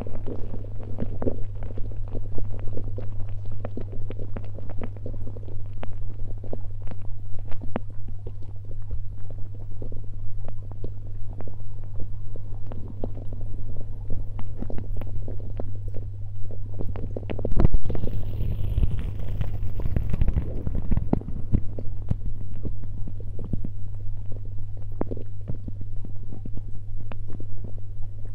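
Muffled underwater sound picked up by a submerged camera: a steady low hum under scattered clicks and knocks, with a louder rumbling stretch about eighteen seconds in.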